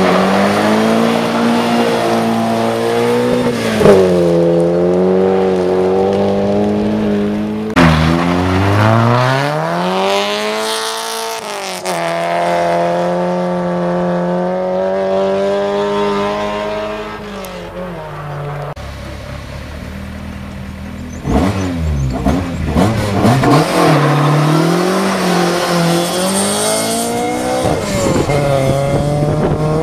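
Competition cars' engines accelerating hard on a gravel road, the pitch climbing through each gear and dropping at each change. There are sudden breaks about 8 and 21 seconds in, and the last part is noisier, with the engine note rising and falling quickly.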